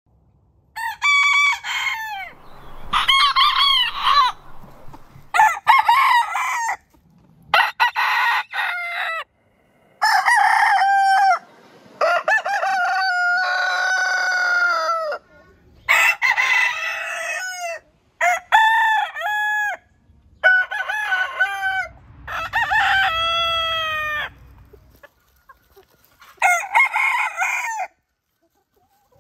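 Roosters of several heritage chicken breeds crowing, about eleven crows one after another with short gaps between them, the pitch and length differing from crow to crow.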